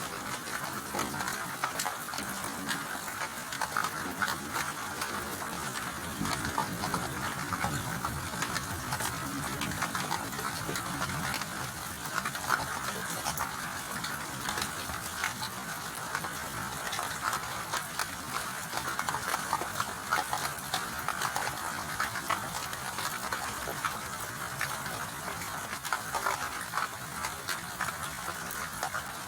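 Steady rainfall: an even, dense patter of drops.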